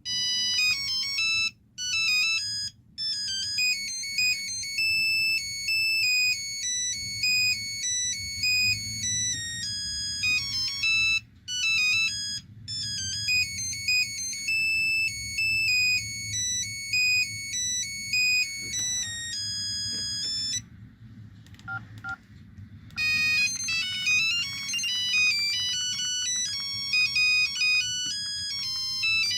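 LG V111 mobile phone's built-in ringtones playing through its small speaker: bright electronic melodies of quickly changing high notes. Several short breaks mark where one tune stops and the next begins, with a pause of about two seconds roughly two-thirds of the way through.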